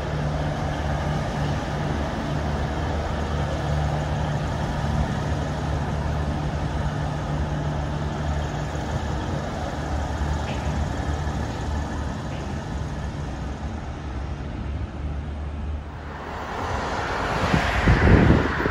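V/Line VLocity diesel multiple unit running along the line: a steady diesel engine hum over wheel and rail noise. About 16 seconds in this gives way to a rising rush with wind buffeting the microphone, loudest near the end.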